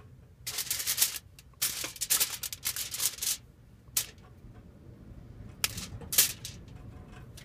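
Aluminium foil crinkling as it is handled, followed by a few separate sharp clicks and snaps as broccoli florets are cut and pulled off the stem with a small knife.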